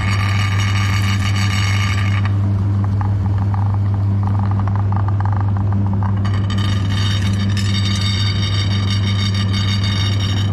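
Electric meat grinder motor running with a steady loud hum and whine, grinding chocolate. For a few seconds in the middle the higher whine drops away and a fine crackling comes through, then the whine returns.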